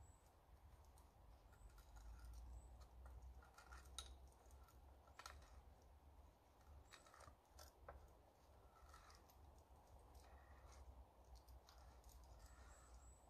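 Near silence with faint, irregular clicks and scrapes of a hand tool working a wooden pole.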